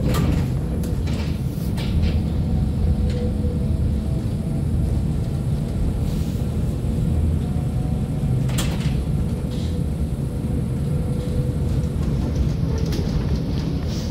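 Inside an M23 tram in motion: a steady low rumble of the running tram, with a faint tone above it and a few sharp clicks, the clearest about halfway through.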